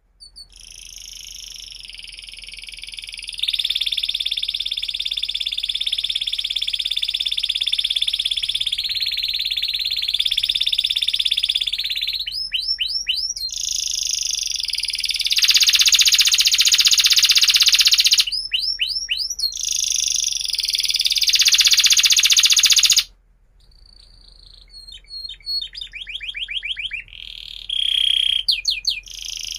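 Domestic canary singing a long song: fast trilled rolls held for several seconds at a time, broken now and then by quick runs of sweeping notes. It pauses briefly about three-quarters of the way through, then picks up again.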